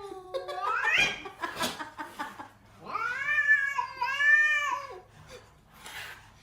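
A cat yowling: a long drawn-out call that rises in pitch as it ends about a second in, then a second long, wavering yowl from about three to five seconds in.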